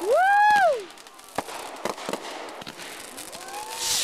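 Fireworks crackling with scattered sharp pops from a glittering star burst. At the start a spectator gives a loud drawn-out exclamation, rising and then falling in pitch, and a fainter one comes near the end.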